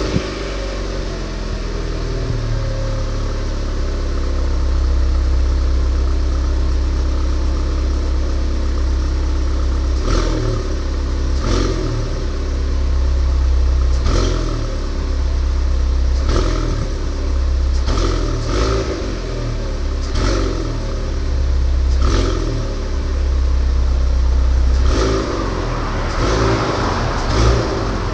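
Fiat Punto Evo's 1.2-litre 8-valve four-cylinder petrol engine idling cold, moments after starting. From about ten seconds in, short sharp sounds come every second or two over the steady idle.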